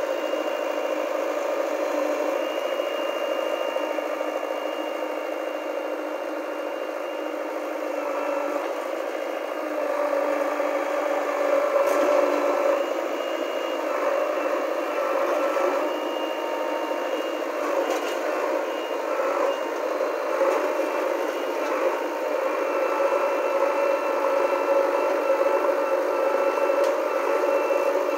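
JCB 3DX backhoe loader's diesel engine running steadily as the machine works, getting louder a few times, with a single knock about halfway through.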